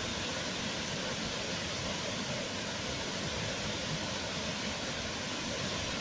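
Wide curtain waterfall rushing steadily over a rock ledge into a pool, a constant full roar of falling water with no breaks.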